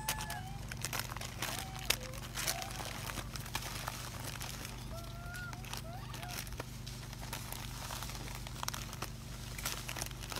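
Macaques pulling bananas and plastic-wrapped snack packets from a pile: crinkling and crackling of plastic with scattered sharp clicks, and a few short faint calls about a second in and again around five seconds in.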